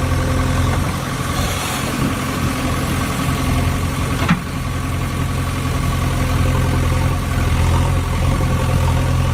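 Engine idling steadily, with a single sharp click a little over four seconds in.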